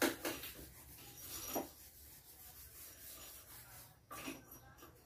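Makeup brush rubbing against the skin of the cheek and jaw while contour is blended in: a few short, soft brushing swishes, at the start, about a second and a half in, and around four seconds in.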